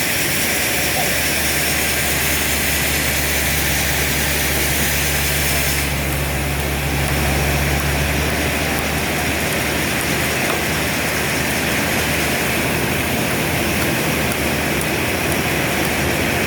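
Sawmill machinery running steadily, a continuous noisy drone with a low engine hum that drops away about eight seconds in.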